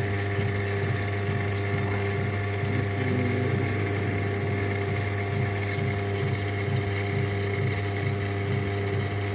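Burden Hecus 3.5 metal lathe running steadily while facing off an uneven workpiece, a steady hum with a faint regular beat about twice a second.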